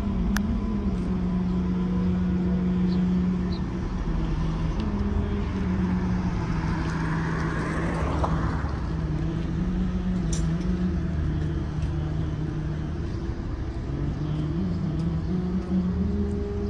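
Street traffic: a motor vehicle engine runs steadily, its pitch shifting up and down every second or two, and another vehicle passes about halfway through.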